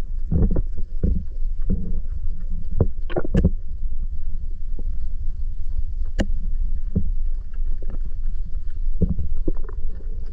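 Muffled low rumble of water heard through a GoPro's waterproof housing while submerged, with scattered clicks and knocks; the sharpest come a few seconds in and again about six seconds in.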